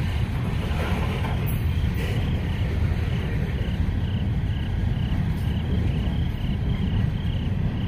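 Freight train's hopper cars rolling past, a steady low rumble of steel wheels on the rails.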